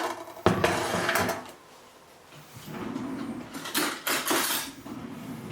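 Lid of an electric soup-maker being lifted off and handled, giving kitchenware clatter: a sharp knock about half a second in, then a rough scraping stretch and several more knocks in the second half.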